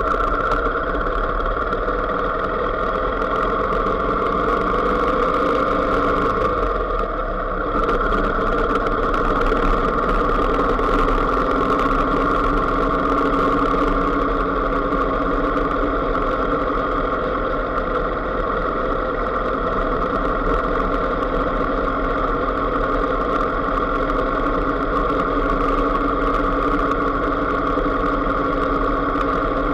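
Engine of a small road vehicle running at a steady, even drone as it travels along, with a low rumble underneath. The engine note dips briefly about seven seconds in, then settles again.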